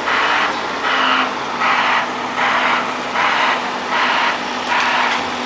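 Heavy equipment's broadband (hissing, white-noise type) reversing alarm, pulsing steadily about once every 0.8 seconds over an engine running steadily.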